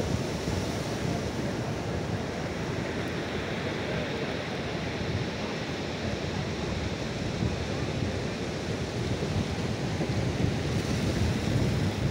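Sea surf breaking and washing up a beach, a steady rushing noise, with wind buffeting the microphone. It grows a little louder near the end.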